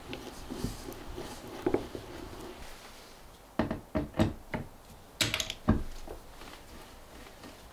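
A few sharp knocks and taps: a loose cluster of four or five about three and a half seconds in, then three or four more about a second later.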